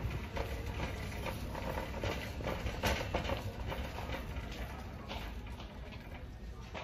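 Irregular footsteps and light taps on a hard store floor, over a steady low background hum from the building.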